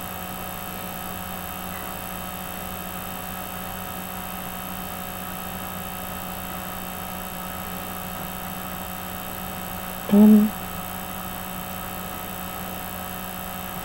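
Steady electrical mains hum with hiss from the recording setup, holding level throughout. One short pitched sound breaks in about ten seconds in.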